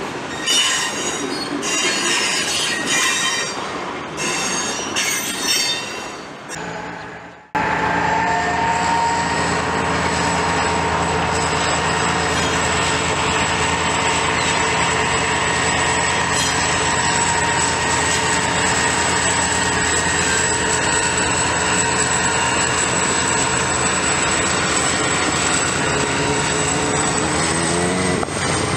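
Freight train wheels squealing on the rails in high, broken bursts. After an abrupt cut comes the steady drone of a GM GT22CW diesel locomotive, with a constant high whine over it, its pitch rising a little near the end.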